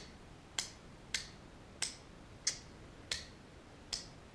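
Sharp, light clicks from the small parts of a disassembled baitcasting reel being worked by hand, the plastic release slide snapping against its metal piece, about one click every two-thirds of a second.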